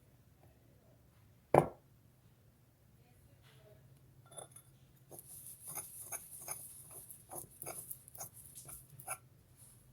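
A single sharp knock about one and a half seconds in, then from about four seconds a run of quick sticky clicks and scrapes, about three a second: a mixing tool stirring a thick, clumping cornstarch-and-glue mixture in a bowl.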